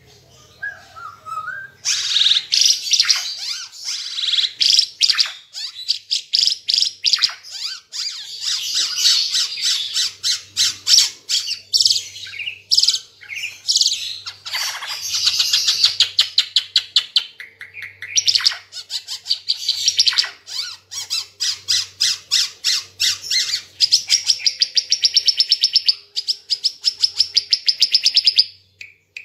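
An Ara Timor songbird in full, continuous song: loud, high-pitched phrases and fast trills of rapidly repeated notes. It starts after a brief softer call about two seconds in, and a long rapid rattling trill near the end breaks off just before the close.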